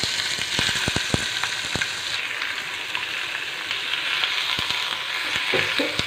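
Raw chicken pieces sizzling in hot oil with frying shallots in a nonstick pan, turned with a wooden spatula. The spatula knocks against the pan several times in quick succession about a second in, and a few more times near the end.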